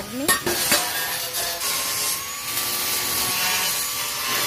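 Stick (arc) welding on a steel-tube tricycle sidecar frame: a steady crackling, sizzling hiss, with a few sharp clicks about a second in.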